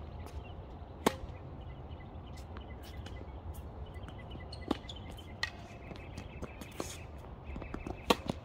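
Tennis rally: sharp pops of the racket strings striking the ball and the ball bouncing on the hard court, several over the stretch. The loudest pop comes about a second in, and two come close together near the end.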